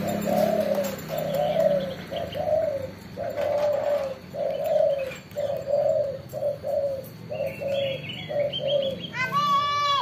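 A caged dove cooing in a long, even run of short repeated notes, about two a second. Near the end come a few higher chirps and a sharp whistling call.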